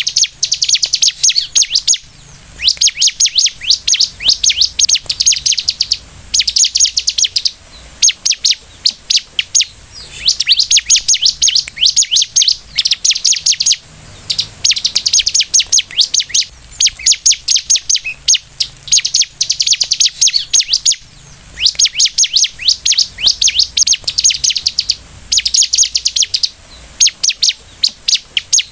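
Bar-winged prinia (ciblek) singing energetically: rapid, high, chattering trills of quickly repeated notes, in bursts of one to a few seconds broken by short pauses.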